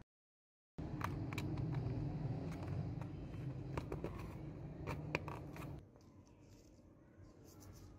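Scattered clicks and scrapes of small plastic parts and wires being handled, over a steady low rumble. Silent for the first moment; the rumble and clicks drop away about six seconds in.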